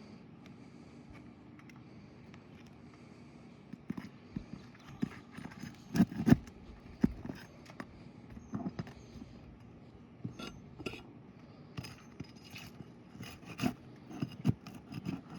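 A tool prying and scraping at roof shingles to unseal them: irregular knocks, clicks and scrapes starting about four seconds in, loudest around six seconds.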